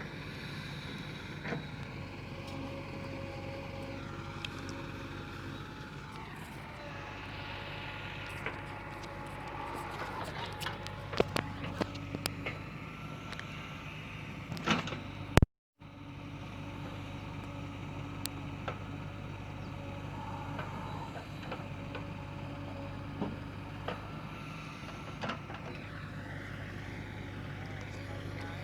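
Heavy diesel machine's engine running steadily, with a rising and falling whine over it. There are scattered sharp knocks and clanks in the middle, and the sound cuts out briefly about halfway through.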